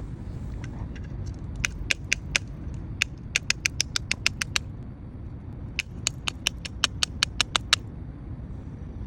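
Fuel filler cap ratchet clicking as the cap is twisted: three runs of sharp clicks, about five a second, over a steady low rumble.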